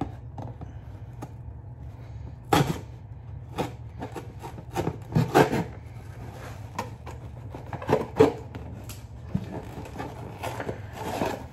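Scissors cutting and poking through a cardboard box, with irregular snips, crunches and knocks as the box is handled, a few of them louder. A steady low hum runs underneath.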